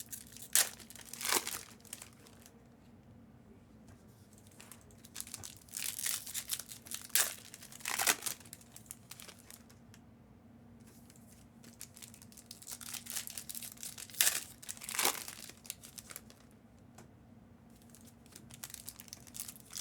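Plastic packaging being handled, crinkling and tearing in irregular short bursts with pauses between them, over a faint steady hum.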